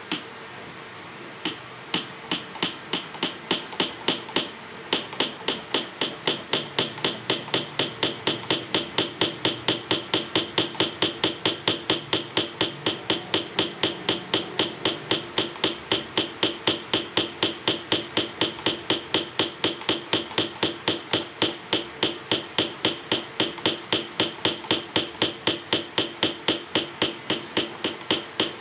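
Plastic French press plunger pumped rapidly up and down through milk to froth it, each stroke a sharp clack. A couple of single strokes come first, then from about two seconds in a steady fast rhythm of about three to four clacks a second.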